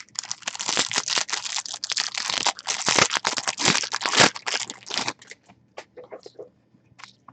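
Trading-card pack wrapper crinkling and tearing as it is opened: a dense crackly rustle for about five seconds, then a few light ticks of the cards being handled.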